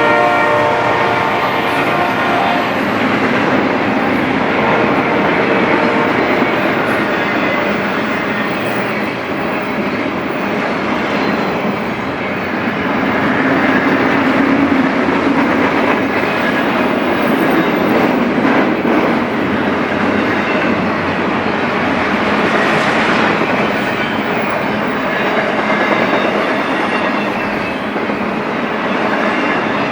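BNSF intermodal freight train rolling past, a steady loud rumble of wheels on rail with clickety-clack from the cars. A locomotive horn blast trails off in the first few seconds.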